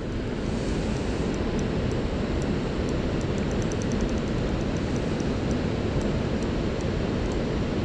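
Steady rush of river water pouring over a weir, an even, unbroken noise.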